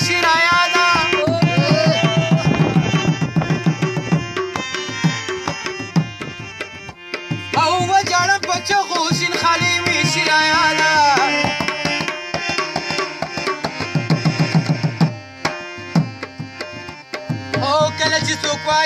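A man singing a Pashto folk song to his own harmonium, with tabla accompaniment; the harmonium holds sustained chords underneath, and the tabla breaks into fast rolls about a second and a half in and again near the end.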